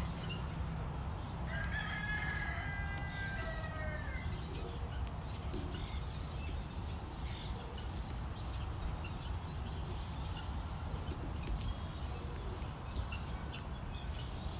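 A rooster crowing once about a second and a half in: one long call lasting about two and a half seconds that drops in pitch at the end, over a steady low rumble.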